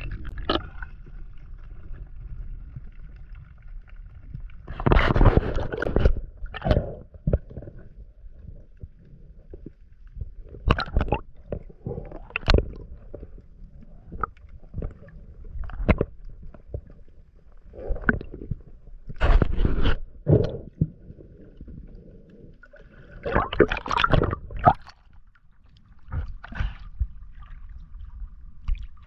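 Underwater recording of a spearfisher's movements: muffled gurgling and rumbling with irregular knocks and scrapes every second or two, as bubbles and handling jostle the waterproof camera housing. A faint steady high whine comes and goes.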